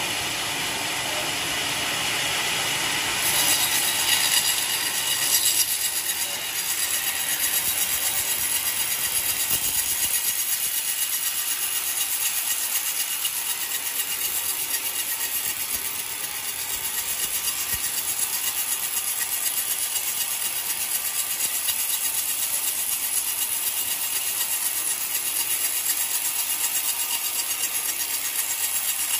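Homemade vertical band sawmill cutting lengthwise through an old coconut log: a steady sawing noise of the blade in the fibrous wood. It grows louder about three seconds in and then runs on evenly.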